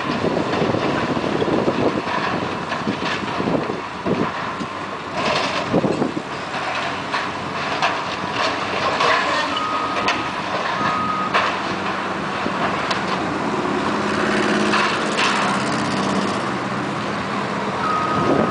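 Hydraulic excavators running as they tear into a stadium's concrete and steel, with repeated crunching and clattering of breaking, falling debris over the steady engine noise. A few short high beeps sound about ten seconds in and again near the end.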